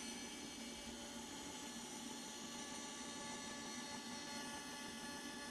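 TIG welding arc burning steadily on stainless steel sheet while a bead is laid: an even hiss with a faint buzzing whine.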